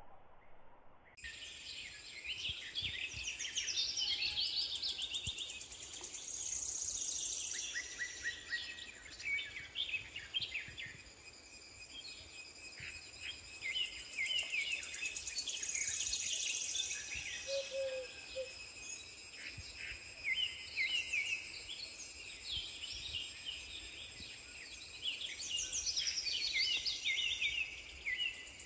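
Birds chirping and calling repeatedly over a steady, high-pitched drone of insects, which starts abruptly about a second in.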